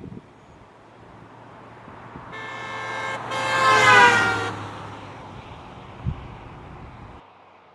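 A car horn honks about two seconds in and is held for about two seconds as the car passes, its pitch falling as it goes by, over a steady low hum of street traffic. A short thump follows near the end.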